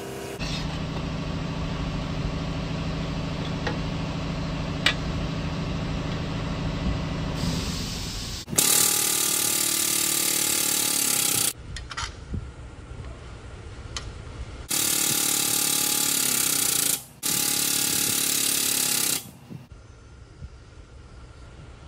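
The air-driven hydraulic pump of a Strongway 50-ton pneumatic/hydraulic shop press runs steadily with a low hum for about eight seconds as the ram forces a dimple die into an aluminum gas-tank baffle. Then compressed air hisses loudly in three bursts: one of about three seconds, then two of about two seconds with a brief break between them.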